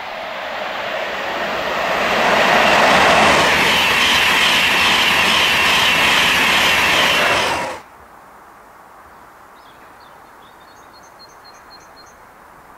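Virgin East Coast express passenger train passing at speed along the platform, its rushing wheel and air noise building up and holding loud, then cut off abruptly about eight seconds in. After that there is quiet outdoor background with a bird chirping several times.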